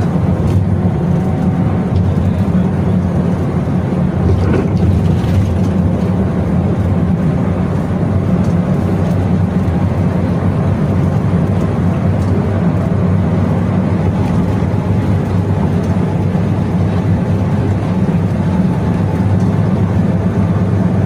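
Intercity bus engine running steadily, heard from inside the cabin as a constant low hum over an even rumble.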